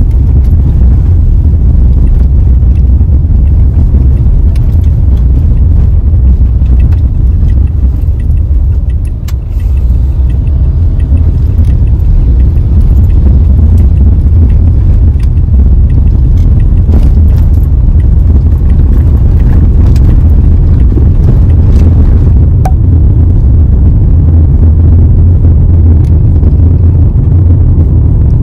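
Car being driven along a road, heard from inside the cabin: a steady, loud, low rumble of engine and road noise that dips briefly about nine seconds in.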